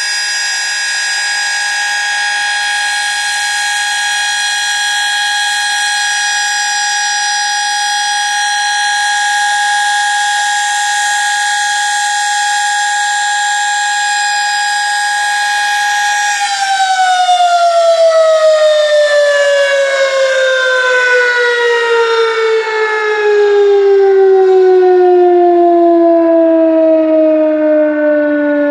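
Sterling Model M dual-rotor electromechanical siren sounding a monthly test: it holds a steady high wail at full speed, then is cut off about 16 seconds in and winds down, its pitch sliding steadily lower.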